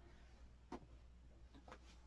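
Near silence: room tone with a low hum, broken by a faint tick about three quarters of a second in and another, weaker one near the end.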